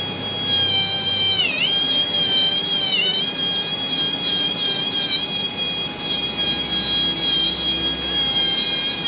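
Electric grinding tool running at high speed with a steady high whine, its pitch dipping briefly about one and a half and three seconds in as it is pressed against the metal. It is grinding down the ridge on the end of the starter shaft so the Bendix drive can be slid off.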